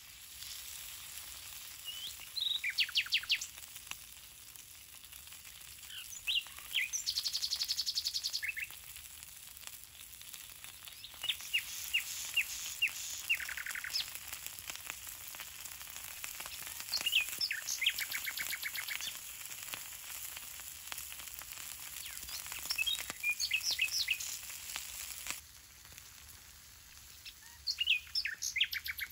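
Bluefish sizzling on a hot stone slab over wood coals, a steady hiss that falls quieter a few seconds before the end. Birds chirp and trill repeatedly over it, their calls the loudest sounds.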